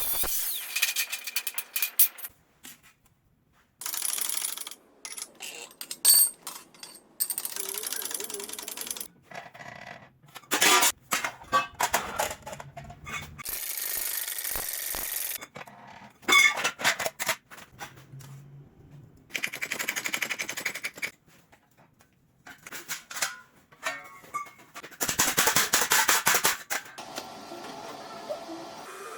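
Workshop work sounds in short, sharply cut stretches: metal clinks and knocks, rapid runs of tapping impacts, and a few bursts of hissing noise lasting a second or two.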